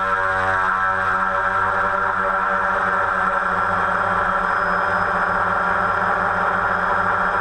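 Multirotor drone's motors and propellers running steadily: an even, buzzing hum with many pitched lines.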